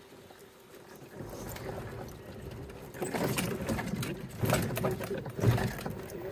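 Yamaha electric golf cart driving, with a steady faint motor whine; about three seconds in a loud rattling and rumbling sets in as the cart rolls over rougher ground.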